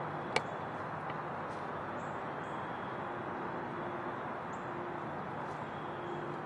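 Quiet woodland ambience: a steady hiss with a faint low hum underneath. There is a single sharp click about a third of a second in, and a few faint, very short high chirps from birds.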